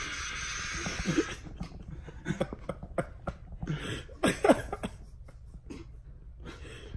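People laughing in short, breathy, stifled bursts and gasps, loudest about a second in and again past the middle. A steady hiss runs under the first second and a half.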